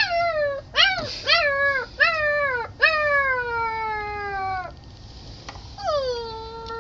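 Puppy whining and crying to be let in: a series of high, pitched cries, each sliding down in pitch, the first few short and quick, then longer drawn-out cries.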